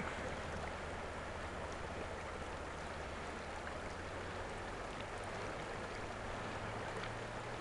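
Steady rush of water around a boat, with the boat's engine idling in a low hum underneath; the engine note steps up slightly near the end.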